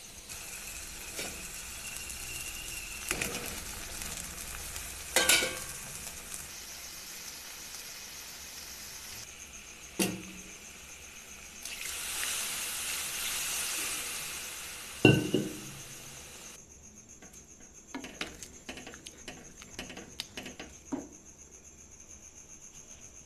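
Matar paneer gravy sizzling in a pan while a spoon stirs it, with several sharp clinks of the spoon against the pan. About two-thirds of the way through the sizzle dies down, leaving only a few light taps.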